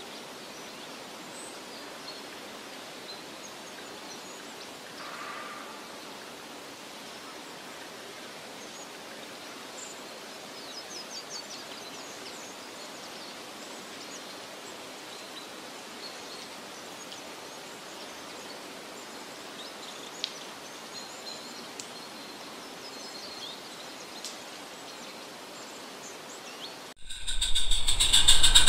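Steady outdoor background hiss with a few faint, scattered bird chirps. Near the end a camera drone's rotors start suddenly and much louder, running with a steady whine.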